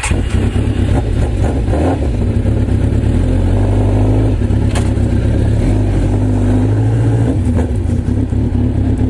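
Kawasaki Z1000 inline-four motorcycle engine running steadily just after a cold start, which the rider suspects is not quite warmed up yet, as the bike pulls away slowly.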